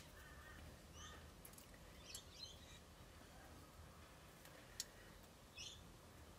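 Near silence with faint, scattered bird chirps in the background. About three-quarters of the way in comes one sharp click from nippers snipping flash off a small pewter casting.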